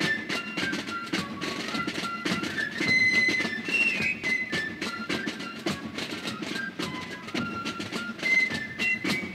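Background music: a high, stepping melody over a steady percussive beat.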